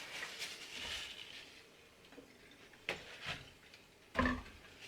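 Small handling sounds of objects being picked up and set down on a desk: a brief rustle in the first second, a sharp click about three seconds in, and a louder knock a little after four seconds.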